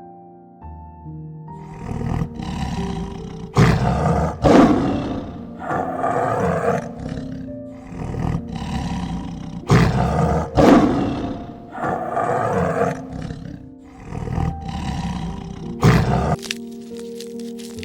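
A large animal roaring over and over, rough, loud calls coming every second or two, with music playing before and after.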